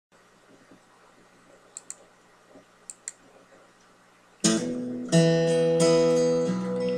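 A few faint clicks over quiet room tone, then about four and a half seconds in an acoustic guitar starts strumming chords: the song's intro, with a new strum a little more often than once a second.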